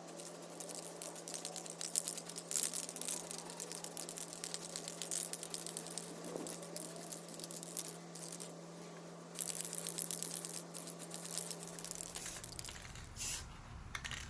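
Aerosol spray paint can in use: many quick metallic clicks from the rattle ball, with spells of spray hiss about two seconds in and again about nine and a half seconds in. The paint is going onto wheel rims.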